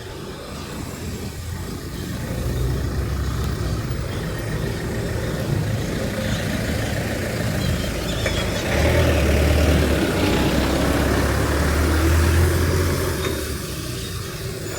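Street traffic: a motor vehicle's engine running close by with a low, steady hum that grows louder about halfway through and eases off near the end.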